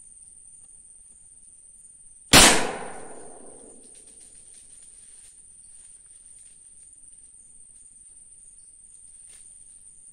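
A single gunshot from a hunting gun about two seconds in, its echo dying away over about a second and a half.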